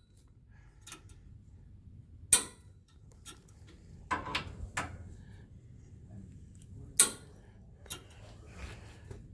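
Hand tools working the tow bar bolts: a few scattered sharp metallic clicks, with a short run of quicker clicks around the middle.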